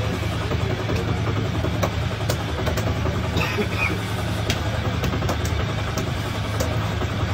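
Steady low engine-like hum, with scattered faint clicks and knocks.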